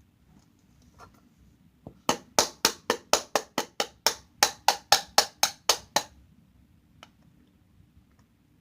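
A quick run of about sixteen sharp hits, about four a second, lasting about four seconds.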